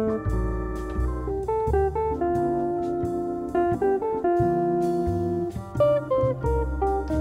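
Background music: a plucked guitar melody of short, distinct notes over a steady bass line.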